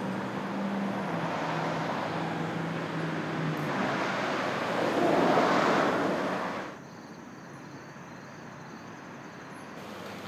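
A motor vehicle passing on the street, a low engine hum under tyre and road noise, growing louder to a peak about five seconds in before cutting off abruptly; a quieter steady outdoor hum follows.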